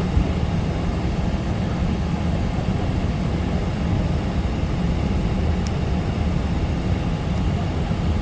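Steady low rumble of airliner cabin noise after landing, with no distinct events.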